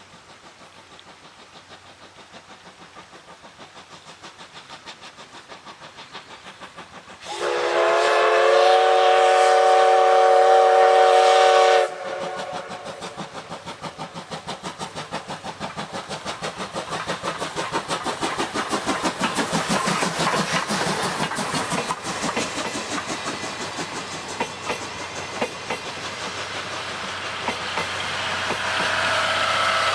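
JNR Class C11 steam locomotive (C11-207) approaching with rhythmic chuffing that grows louder. About seven seconds in it blows one long steam whistle blast of several tones together, lasting about four and a half seconds and cutting off sharply. The chuffing then carries on louder and quicker.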